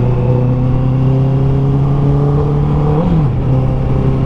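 Honda CB650R's 649cc inline-four, breathing through an Akrapovic full-system exhaust, running at a steady cruise while being ridden. About three seconds in the engine note briefly rises, then dips.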